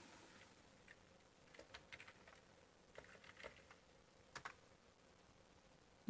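Faint typing on a computer keyboard: scattered key clicks, with a quick run of keystrokes about two seconds in.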